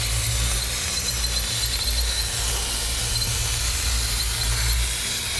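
Plasma cutting arc, used as the sound of a torch tracing the logo: a steady loud hiss with a thin high-pitched whine over a low rumble.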